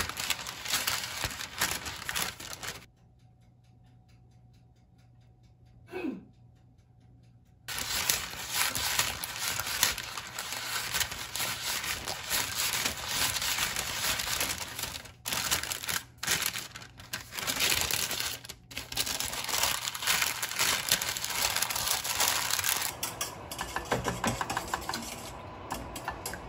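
Baking parchment paper rustling and crinkling as it is lifted, folded and handled in a metal baking tray, with a brush pressed against it. A few seconds near the start go nearly quiet apart from one brief sweep.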